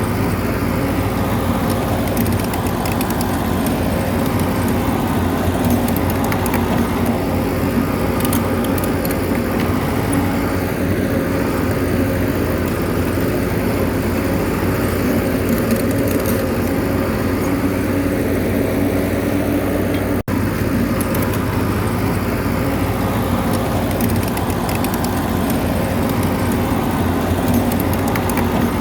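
Bulldozer's diesel engine running steadily, with light metallic clinking over it. It breaks off for an instant about two-thirds of the way through.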